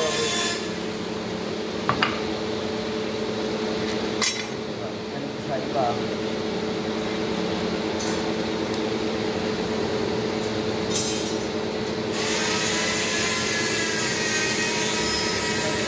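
Steady machine hum with a few sharp metal clinks as the steel shafts and spur gears in an open gear housing are turned and fitted by hand. A higher hiss drops out soon after the start and comes back about twelve seconds in.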